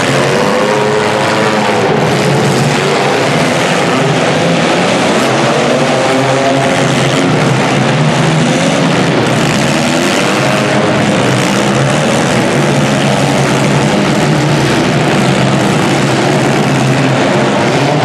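Many small demolition derby cars' engines revving together in an indoor arena, a loud, steady din of overlapping engines rising and falling in pitch.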